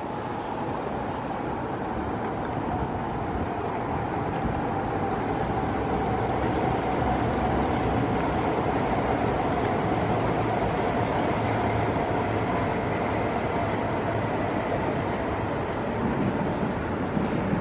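SMRT North-South Line electric train running past: a steady rumble of wheels on rail, with a faint motor whine that slowly falls in pitch.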